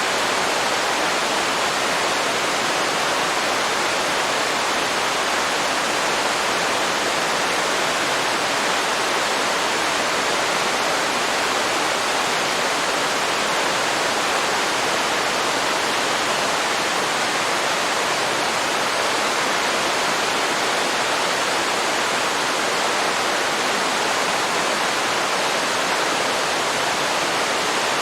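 Waterfall pouring steadily into a river, a constant even rush of falling water.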